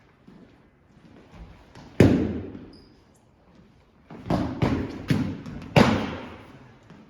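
Padded sparring weapons striking, a series of sharp hits: one hard hit about two seconds in, then a quick flurry of four or five hits a couple of seconds later.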